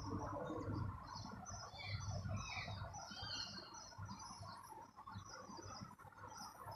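Small birds chirping: many short, quick high calls overlapping throughout, over a low steady background rumble.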